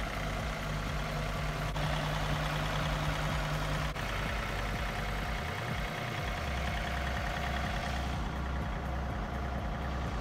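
John Deere 3032 compact tractor's three-cylinder diesel engine idling steadily.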